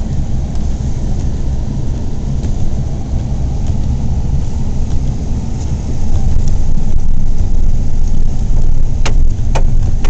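A car driving through deep snow, heard from inside the cabin: a loud, steady low rumble that grows louder about six seconds in, with two sharp clicks near the end.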